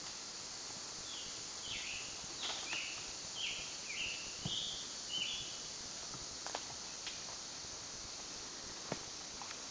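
Woodland sounds: a steady high insect hiss, with a bird giving a run of about eight short, falling call notes in the first half. A few sharp clicks are scattered through, the loudest two coming past the middle and near the end.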